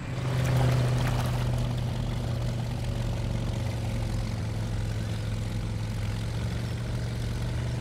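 Animated amphibious jeep on an inflatable float motoring across water: a steady, low engine drone that swells in the first second and then holds even.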